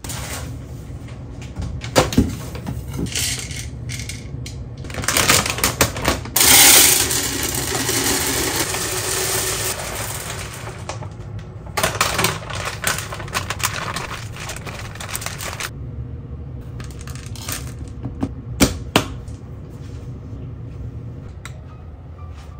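Dry dog kibble and its foil pet-food bag being handled: clattering and rattling of kibble with crinkling of the bag, a dense stretch of rattle about a third of the way in, and scattered sharp clicks.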